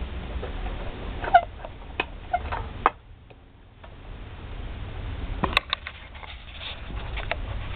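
Universal Atomic 4 marine inboard petrol engine running, a low rumble with irregular clicks and knocks over it; the rumble drops away about three seconds in and builds back up over the next few seconds.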